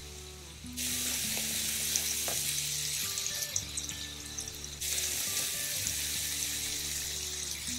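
Shrimp sizzling in hot olive oil in a nonstick pan. The sizzle starts suddenly about a second in, with a few light clicks as metal tongs turn the shrimp.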